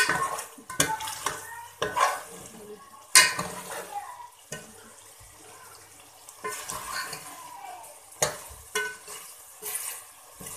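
A spoon stirring chicken and masala frying in oil in a metal pot: irregular knocks and scrapes of the spoon against the pot, with a faint sizzle between them.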